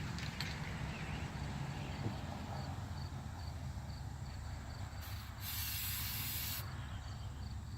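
Aerosol can of Flex Seal liquid rubber spraying in one hissing burst of about a second and a half, a little past the middle.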